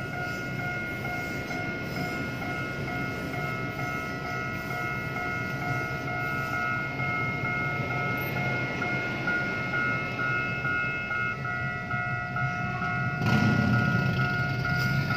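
Level crossing warning alarm sounding a steady, evenly pulsing electronic tone while a passenger train rumbles past. Near the end there is a louder low rumble as the barriers lift and traffic moves off.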